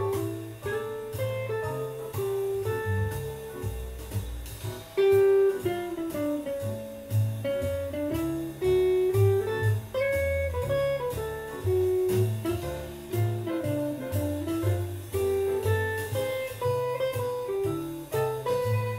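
Electric guitar playing a single-note improvised line in a jazz-blues style, with slides and bends between notes, over a bass line that changes note about every half second.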